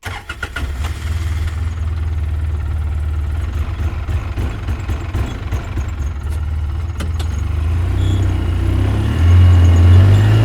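ATV engine running with a steady low hum. A few clicks sound in the first second, and the engine gets louder and higher near the end.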